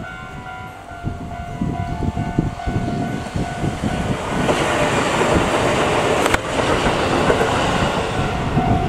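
Kintetsu electric train approaching and passing close by: a faint steady whine at first, then a rush of wheels on rail that builds about halfway through and stays loud for several seconds. A single sharp click sounds in the middle of the pass, and wind buffets the microphone.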